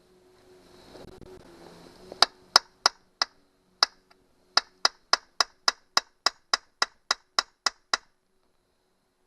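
A hammer tapping on metal about eighteen times, each blow sharp with a brief metallic ring. It starts with a few uneven strikes, then settles into a steady run of about three a second, while working at a rust-seized broken screw stud on a Johnson 90 hp outboard engine.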